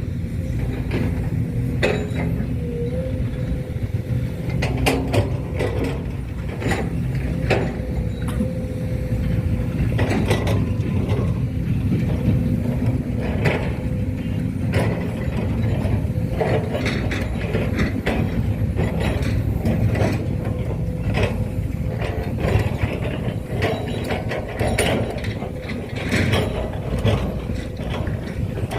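Small electric gear motors of a radio-controlled model excavator whirring steadily, with irregular clicks and rattles from its gearboxes throughout.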